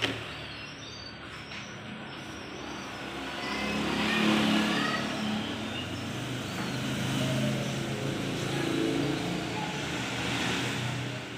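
Motor vehicle engines passing on a nearby road: a steady traffic hum that swells as a vehicle goes by about four seconds in, and again later on.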